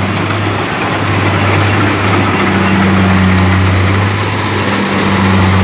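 Kubota DC-70 combine harvester's diesel engine running steadily: a deep, even engine hum under a constant noise of working machinery.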